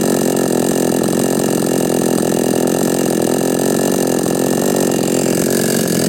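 Chinese 45cc two-stroke chainsaw engine, freshly re-ported and fitted with new piston rings, running steadily at an even speed.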